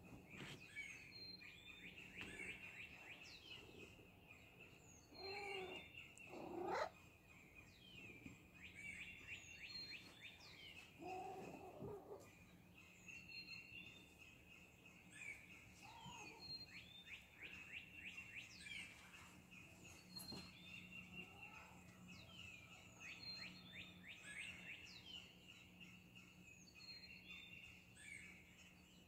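Faint dawn chorus of songbirds chirping throughout. A cat meows several times in the first half, loudest about six and a half seconds in, and again near twelve seconds.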